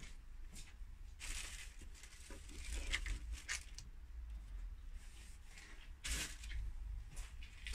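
Faint scattered clicks, taps and scraping noises from work on the fitting, with a low rumble underneath and no tool motor running.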